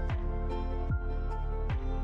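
Background music: a steady beat of deep kick drums, about one every 0.8 seconds, under sustained notes.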